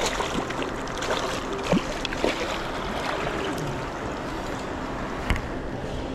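Steady rush of river water flowing past, with a few short, sharp knocks or splashes, the strongest about two seconds in.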